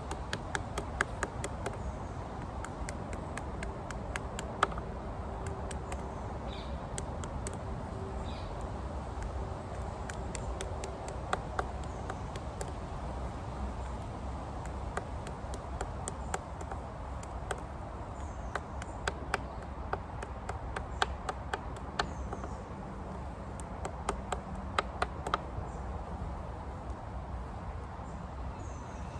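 Wooden walking stick tapping along fresh nettle stems laid on a log, flattening the stubborn nodes of the stems: runs of quick, light, sharp taps with pauses between them.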